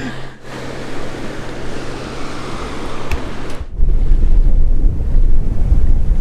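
Wind and water noise aboard a sailboat, with a steady low hum underneath. A little under four seconds in it changes abruptly to louder wind buffeting on the microphone, a heavy low rumble.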